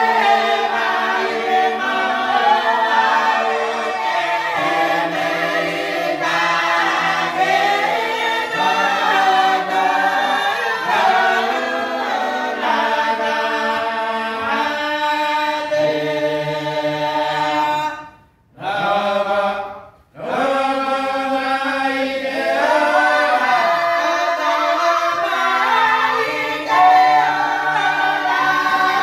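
A group of voices singing a cappella in harmony, long held notes moving together, with a brief break about two-thirds of the way in before the singing picks up again.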